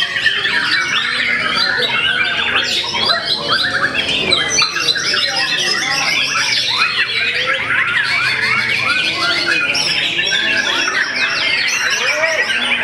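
Many caged white-rumped shamas singing at once: a dense, unbroken mix of fast whistles and chirps from many birds, overlapping without a pause.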